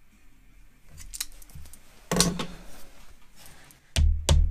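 Light metallic clinks of hand tools being handled, with one sharp knock about two seconds in. Near the end a mallet starts striking, two quick blows, as it hammers the aluminum nose-rib flange down over a wooden form block.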